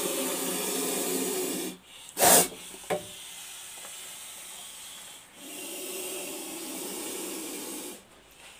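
Cobra hissing with its hood spread, a defensive warning. There is a long breathy hiss, then a short, sharp and loud one about two seconds in, and another long hiss from about five and a half seconds to eight.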